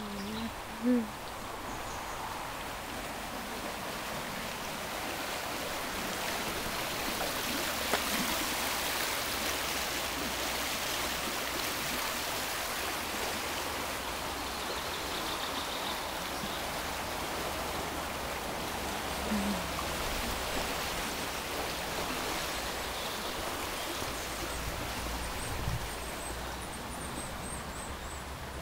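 Stream water running in a steady rush, a little louder in the middle as the footbridge over it is crossed.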